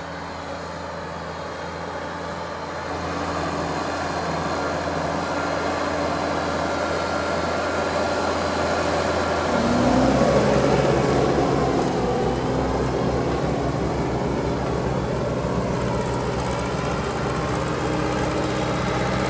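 Farm tractor engine running steadily, growing louder about ten seconds in.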